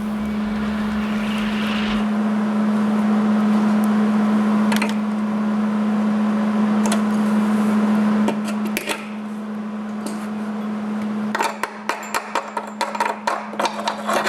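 Hobart welder's arc crackling steadily through a long weld bead on the mower deck's stud, over a steady hum from the welder. About eight seconds in, the bead stops. From about eleven seconds in, the arc comes in short stop-start bursts.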